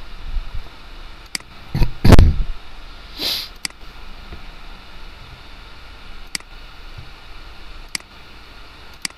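Computer mouse clicking five times, single sharp clicks spaced a second or more apart, over a steady background hiss. About two seconds in comes a loud low thump, the loudest sound, followed a second later by a short hiss.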